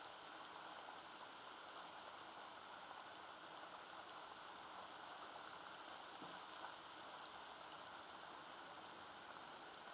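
Near silence: a faint, steady outdoor hiss, with one faint tick about two-thirds of the way through.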